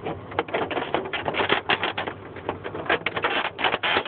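Plastic snap clips of a Dell A960 printer's top cover clicking and cracking as the cover is pried loose by hand: a rapid, irregular run of sharp clicks.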